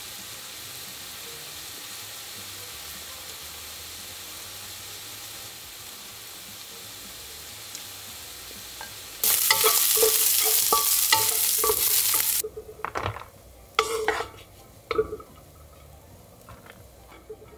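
Diced chicken frying in a nonstick pan: a faint steady sizzle, then about nine seconds in a loud sizzle for about three seconds with a wooden spatula scraping and stirring. After that come a few scattered scrapes and knocks of the spatula in the pan.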